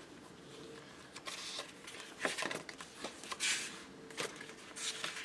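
Glossy sticker sheets in a sticker book rustling as they are leafed through by hand, in a few short paper swishes.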